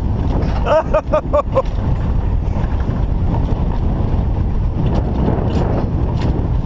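Alpine coaster cart running down its rail track: a steady rumble of wheels on the rails mixed with wind on the microphone. About a second in comes a quick run of five short, pitched chirps, and there are scattered light clicks from the ride.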